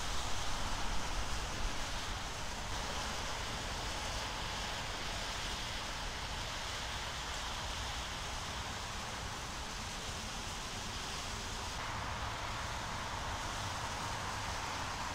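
Steady outdoor wind noise hissing and rustling on the microphone, with a low rumble beneath. The character of the noise shifts slightly about three seconds in and again near twelve seconds.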